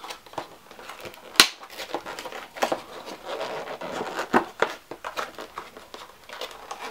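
Clear plastic blister packaging crinkling and crackling as it is handled and pried at to free a miniature, with irregular clicks and a sharp click about a second and a half in.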